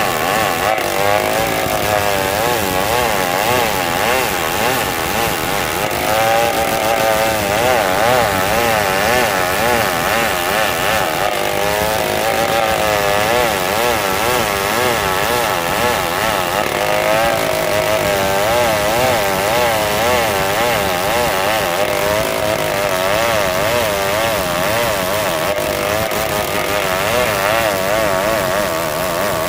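Old two-stroke chainsaw running hard while ripping lengthwise through a plank of hard marsawa batu timber. Its engine pitch wavers rapidly up and down.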